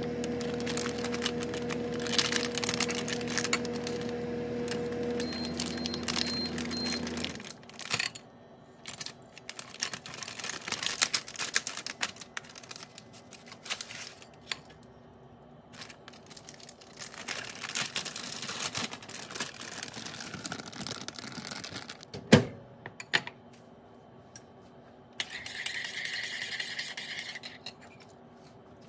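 Foil-lined snack pouch crinkling and rustling as it is handled and a khakhra is pulled out, with one sharp knock of something set down on the tiled counter about two-thirds of the way through.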